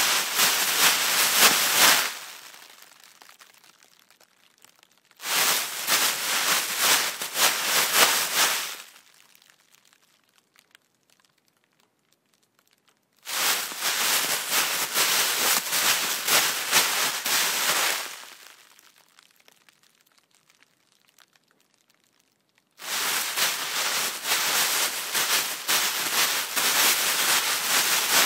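Plastic trash bag being handled and rustled, crinkling and crackling in four separate bouts of a few seconds each, with quiet pauses between them.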